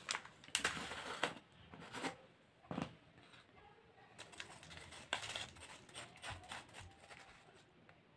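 Scattered handling noises: short rustles and clicks, the busiest stretch in the first second or so and a few more later.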